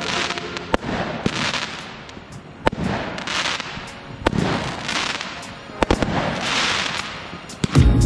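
Fireworks display: irregular sharp bangs of bursting shells and comets, with a hissing rush about every second and a half. Loud music with a heavy bass comes in near the end.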